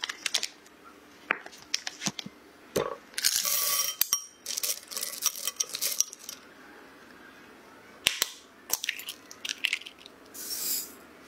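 Short bursts of baking-prep handling sounds separated by pauses: paper rustling around a block of butter, chocolate pieces clicking in a glass bowl as a silicone spatula stirs them, and light taps and clinks on glass.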